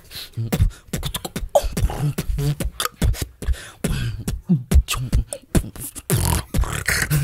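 A beatboxer's mouth percussion: a quick, dense run of clicks and snare-like hits over low kick thumps, with a few short pitched vocal slides mixed in.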